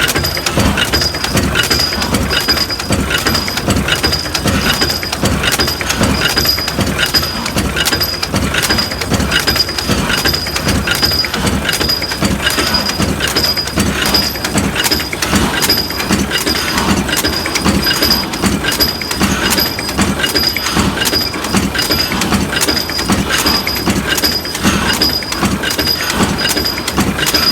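Forging machines working in a steady, regular repeating cycle, a mechanical beat of about one and a half strokes a second that keeps an even pace throughout.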